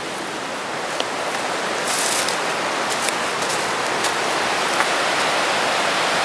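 Rushing river water, a steady hiss of white water running over rocks below a dam, which grows louder about a second in. A few light crackles sound over it.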